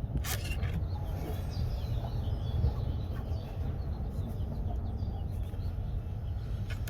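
Birds chirping in the background, many short high calls, over a steady low rumble.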